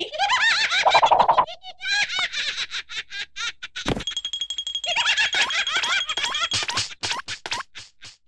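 A cartoon larva laughing: high-pitched, rapid, chattering laughter in long runs. The laughter thins out for a moment about three seconds in, with a single sharp thump just before four seconds, then picks up again.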